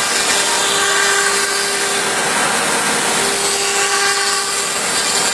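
CNC router spindle cutting wood: a steady loud cutting noise with a whine that fades in and out in stretches as the bit works the material.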